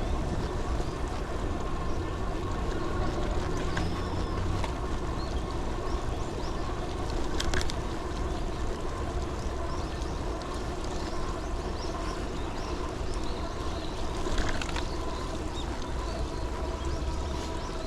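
Steady wind and road noise from riding on wet pavement, with a low rumble and a faint constant whine. A couple of brief taps come through, one near the middle and one late on.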